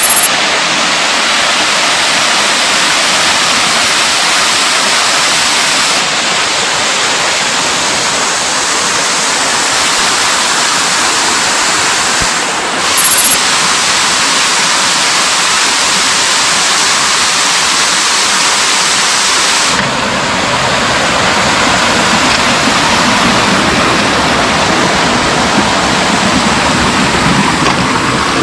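Loud, steady rush of a mountain stream's water cascading over rocks. The rush changes character abruptly a few times, about 6, 10 and 20 seconds in, with a brief louder burst near 13 seconds.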